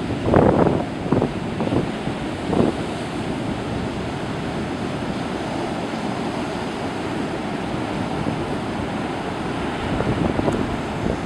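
Big storm surf breaking and churning steadily, with wind buffeting the microphone. Several louder surges come in the first three seconds and a smaller one near the end.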